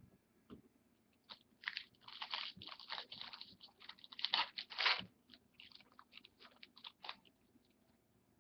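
Trading card pack's foil wrapper being torn open and crinkled by hand, a dense crackling for a few seconds, loudest near the middle, then trailing off into a few short crinkles.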